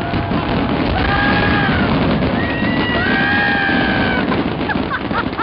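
Fireworks display going off in a dense, continuous barrage of bursts and fountains, with several long sliding tones over it.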